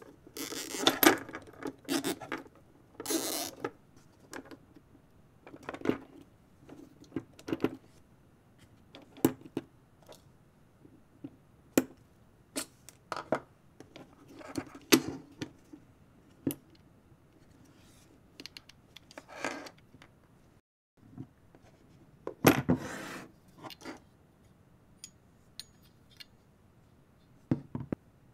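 Hands handling a plastic computer case fan and black cable ties, then metal camera rig parts: irregular clicks, light knocks and short scraping rasps, with a brief break about three-quarters of the way through.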